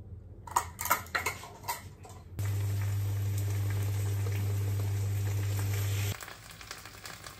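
A few clinks of a metal spoon, then from about two and a half seconds in, oil sizzling steadily in a frying pan as green-onion pancake (pajeon) batter fries, over a low hum. The sizzle cuts off suddenly after about four seconds.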